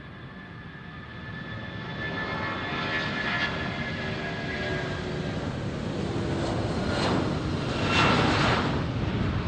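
Jet airliner's engines running as it passes, with a high whine on top of the rushing noise. The sound grows steadily louder and is loudest about eight seconds in.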